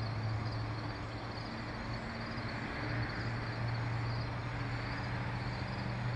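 Steady low hum over a constant hiss, with crickets chirping faintly in a rapid pulsing rhythm.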